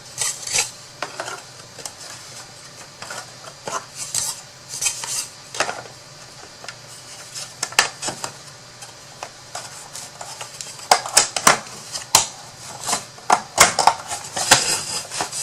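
Light clicks, taps and clatter of the cut pieces of a craft storage box being handled and fitted together, the knocks coming thicker toward the end.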